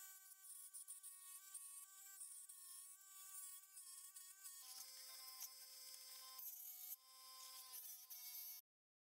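Electric scroll saw running as it cuts through a pine board, a faint, steady high-pitched buzz. Its pitch drops about halfway through, and it cuts off suddenly near the end.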